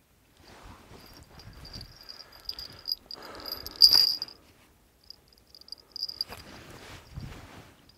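Rustling and handling noise from the angler's clothes and fishing rod, with a sharp, louder sound about four seconds in as his hands lift. Under it a high, steady insect trill keeps coming and going.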